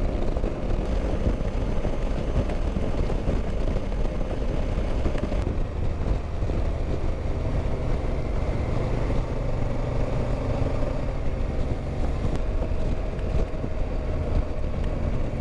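Motorcycle riding at steady highway speed from the rider's seat: a constant rush of wind noise on the microphone over the engine's steady hum.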